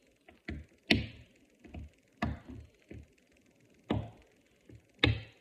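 Plastic linking cubes clicking and knocking as they are snapped together into a stack and set down on a wooden table: a string of short, irregular clicks, the loudest about a second in.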